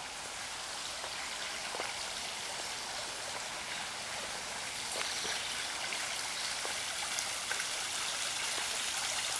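Small backyard pond waterfall splashing and trickling over rocks into a pond, a steady water sound that grows gradually louder as it is approached.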